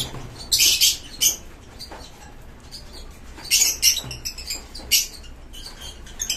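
Masked lovebird cracking and husking sunflower seeds in its beak: a handful of short, crisp cracks at irregular intervals.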